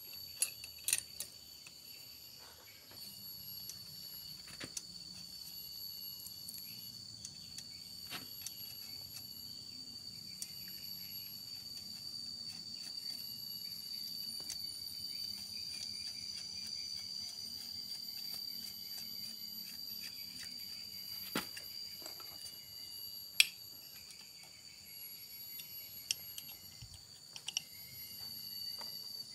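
Scattered light clicks and knocks as motorcycle engine parts are handled and fitted, with one sharper knock near the end. A steady high-pitched whine sounds throughout.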